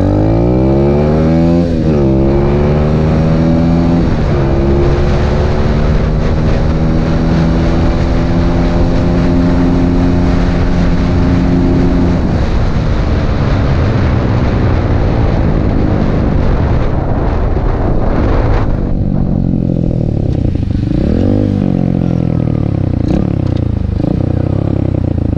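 Coolster 125cc pit bike's single-cylinder four-stroke engine accelerating hard. The revs climb and drop back twice in the first four seconds as it shifts up, then hold at a steady high pitch at full speed. About twelve seconds in the revs fall away slowly, and near the end the engine runs low with a few short throttle blips, with wind rushing on the microphone throughout.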